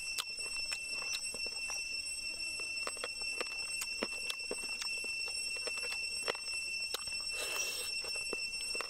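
Close-up eating sounds of grilled pork ribs torn and chewed by hand: irregular wet clicks and smacks, a few a second, with a short hissing rustle about three-quarters of the way in. A steady high whine runs underneath.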